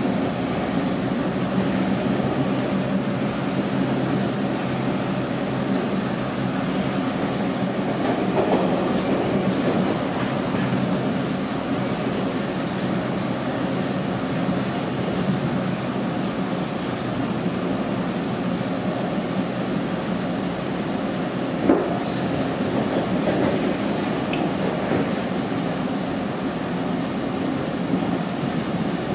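Toronto subway train running at speed, heard from inside the car: a steady rumble of wheels on rail, with one sharp click about three-quarters of the way through.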